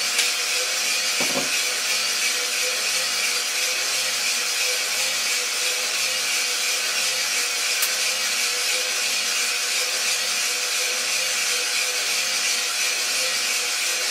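An iRoaster 600 coffee roaster running: a steady hiss of moving air over a constant motor hum, with a soft low pulse repeating about every 0.7 s. There is a short rattle about a second in.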